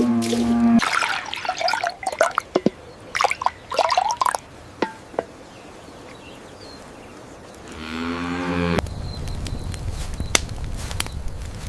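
Cattle mooing: a short low call at the start and a second one about eight seconds in, followed by a steady rustling hiss with scattered clicks.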